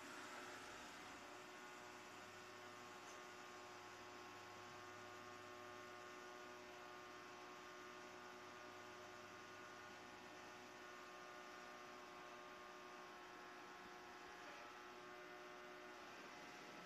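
Faint, steady hum made of several held tones from a robot vacuum cleaner running across a tiled floor. Its lowest part drops out about eleven seconds in.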